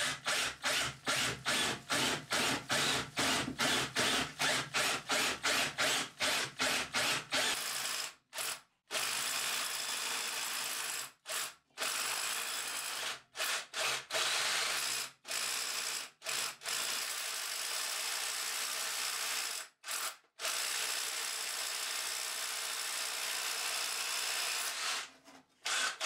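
Cordless SDS hammer drill boring through a brick-and-block cavity wall with a metre-long masonry bit. For the first seven seconds or so it runs in quick stuttering pulses, about four a second, then drills in longer steady runs broken by several short stops, and stops about a second before the end.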